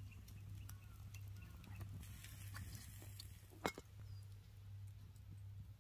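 Quiet handling of cooking gear while charcoal-grilled yakitori are prepared: faint scattered ticks and one sharp clink with a brief ring about two-thirds of the way through, over a low steady hum.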